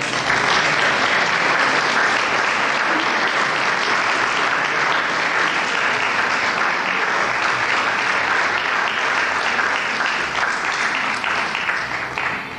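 An audience applauding steadily, dense clapping that dies away near the end.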